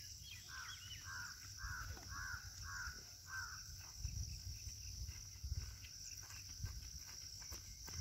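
A bird calling in a quick series, about two short calls a second, stopping about three and a half seconds in, over a steady high drone of insects. A few low rumbles and thuds come through later.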